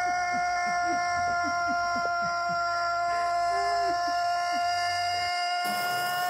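A single long, steady, high held tone with many overtones, unbroken and unwavering in pitch. It carries on across the picture cut, so it is a sound effect laid over the clip in editing. Faint short downward squeaks sound beneath it through the first four seconds or so.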